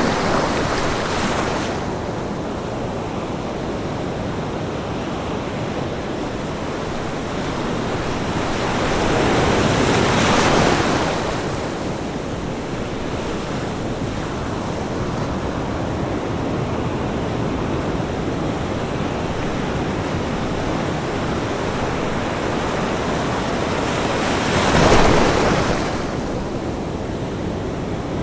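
Ocean waves on a beach: a steady wash of surf, with a larger wave swelling and breaking twice, about ten seconds in and again about twenty-five seconds in.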